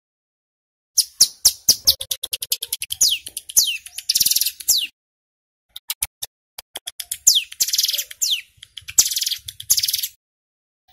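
Male ciblek gunung (hill prinia-type warbler) singing in two bouts separated by a short pause. Each bout has rapid sharp ticks, quick downward-sweeping whistles and dense high buzzing rattles, the fast 'ngebren' trill.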